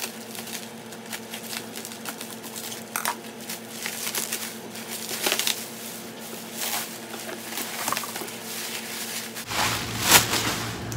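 Plastic bubble wrap crinkling and rustling as it is cut with scissors and pulled off a cardboard box, in irregular crackly bursts. The loudest burst comes near the end as the wrap is pulled clear.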